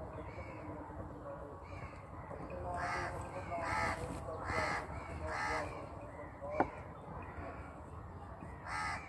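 A crow cawing: a run of four harsh caws just under a second apart, starting about three seconds in. A single sharp click comes about two-thirds of the way through, over a steady low background noise.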